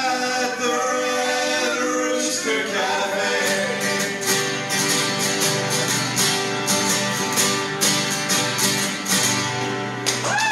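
Live acoustic folk-country song: male voices singing over three strummed acoustic guitars. A long held sung note opens it, then the guitars strum a steady rhythm under the singing.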